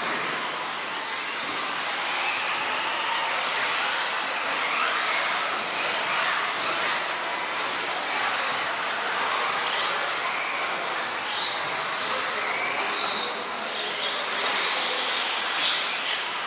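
A field of 4WD off-road RC cars racing, their electric motors whining in repeated overlapping rising sweeps as they accelerate and back off, over a steady hiss.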